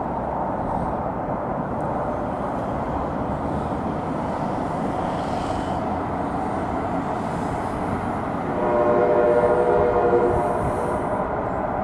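Steady rolling noise of a light rail train passing, then a train horn sounds once for about a second and a half near the end.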